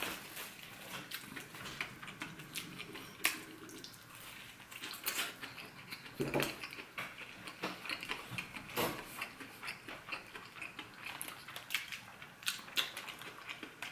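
A person chewing a mouthful of deep-fried battered corn dog, close to the microphone: irregular small clicks and smacks of the mouth, with a few slightly louder ones scattered through.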